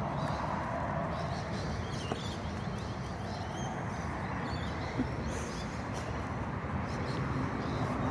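Outdoor ambience: birds chirping over a steady low rumble, with two faint knocks, one about two seconds in and one about five seconds in.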